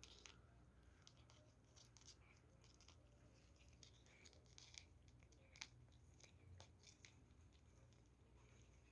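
A cat chewing crunchy treats: faint, irregular little crunches and clicks, a few sharper ones about halfway through.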